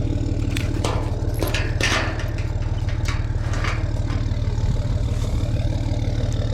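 A vehicle engine idling steadily, with several sharp clanks in the first four seconds.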